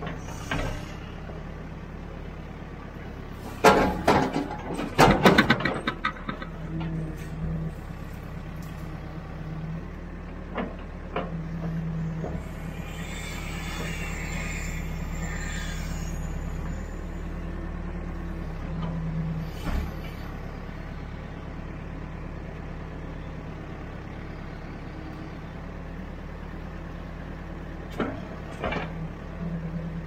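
Caterpillar backhoe loader's diesel engine running steadily, swelling briefly several times as the arm works. The bucket digs into wet mud with a burst of loud clanks and scrapes about four to six seconds in, then a few single knocks later on.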